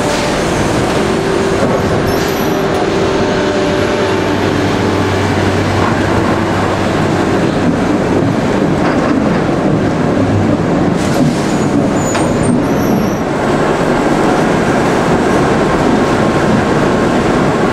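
Sawmill log infeed of a squared-timber profiling line running: step feeders and chain conveyors moving logs, a loud, steady mechanical noise. A low hum runs under it for the first few seconds.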